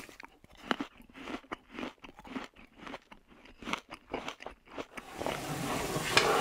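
Someone biting and chewing a crisp apple: a string of sharp, irregular crunches for about five seconds, which gives way to a steady hiss of room noise near the end.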